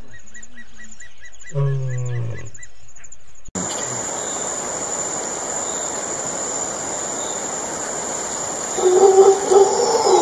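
A lion gives one short, low grunting call about two seconds in, over a high pulsing insect trill. The background then changes abruptly to a steady hiss of insects, and near the end a mantled howler monkey starts howling in deep, choppy calls.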